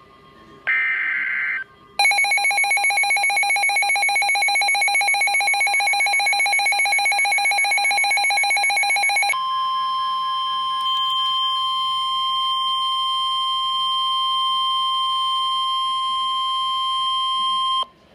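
Emergency Alert System tones for a National Weather Service tornado warning: the end of the screechy digital SAME header burst, then a fast-pulsing buzzy alert tone, about eight pulses a second, for about seven seconds. It then changes to the steady single-pitch NOAA Weather Radio warning alarm tone, which cuts off suddenly near the end.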